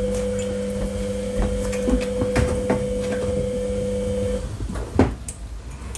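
A steady machine hum with two tones cuts off about four and a half seconds in. A few light knocks and clicks follow.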